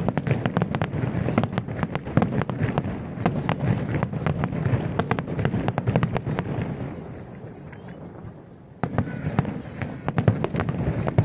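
Aerial fireworks going off in rapid succession, a dense run of bangs and crackling. It dies away about seven seconds in, and a new barrage starts suddenly near nine seconds.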